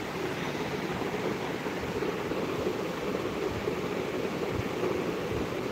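Steady, even background noise with a few faint low thuds near the end.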